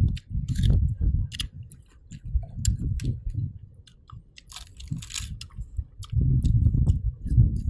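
Crunching bites and chewing of raw green mango close to the microphone, with crisp crunches in the first couple of seconds and again around five seconds in.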